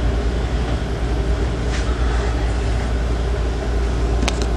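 Steady low droning background hum, with a sharp click or two about four seconds in.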